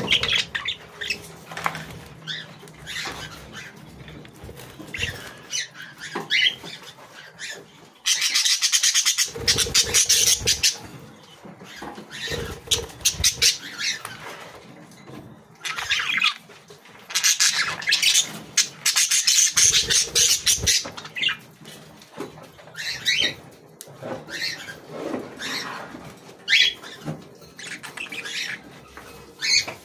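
A small flock of budgerigars chirping and chattering, with two long stretches of dense, scratchy chatter, one starting about eight seconds in and another around sixteen to twenty-one seconds in.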